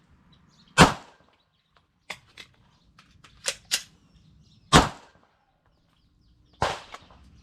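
AR-15 rifle firing Tula steel-case ammunition in single shots: three loud shots, about a second in, near five seconds and near seven seconds. Sharp metallic clicks of magazine changes come between the first two.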